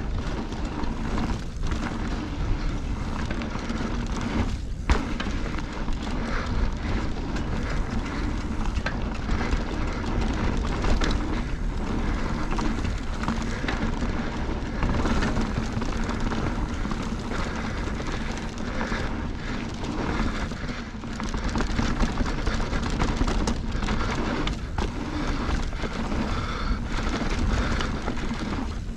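Mountain bike descending a dirt singletrack at speed: steady rumble of the knobbly tyres rolling over packed dirt and wind rush on the camera microphone, with scattered knocks and rattles from the bike over bumps.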